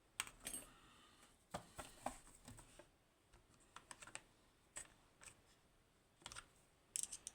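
Faint, irregular small clicks and taps from small hand tools and lock parts being handled, about a dozen over several seconds.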